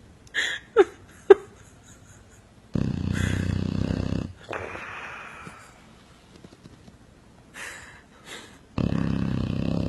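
Loud snoring, likened to a motorcycle engine: two long buzzing snores, about three seconds in and again near the end, the first followed by a quieter breath out. A few short squeaks falling in pitch come in the first second and a half.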